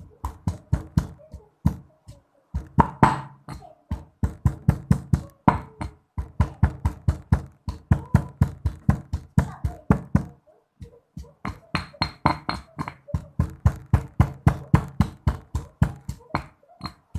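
Pestle pounding in a mortar, about four strikes a second, in long runs with two short pauses.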